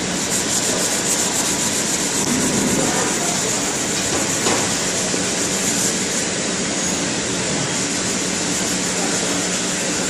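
POLO DX 115 automatic knife sharpening machine running, a steady hum under a continuous abrasive grinding rub.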